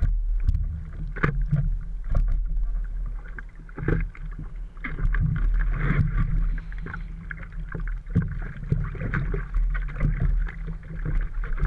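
Seawater slapping and splashing against a surfboard, picked up by a camera fixed on the board's deck at the waterline: irregular sharp splashes over a constant low rumble.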